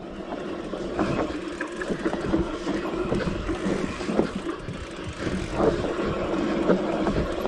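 Mountain bike rolling fast down a dirt forest trail: tyres running over dirt and roots, with the bike's frame and chain rattling and knocking over the bumps and wind on the microphone.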